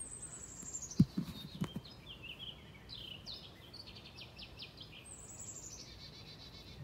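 A songbird singing in the trees: a high, rapid song that slides downward in pitch, heard twice, with short chirps and a quick trill in between. A couple of sharp knocks about a second in, louder than the song.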